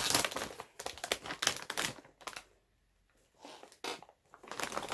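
Plastic snack bag of cheese puffs crinkling as it is handled and opened: about two seconds of dense rustling, a short pause, then a few more rustles near the end.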